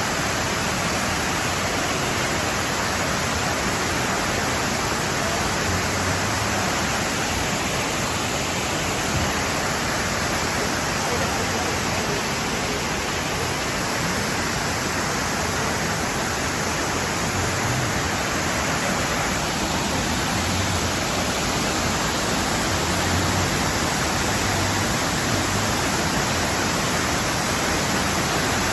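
Nabegataki waterfall: a steady, even rush of falling water that does not change.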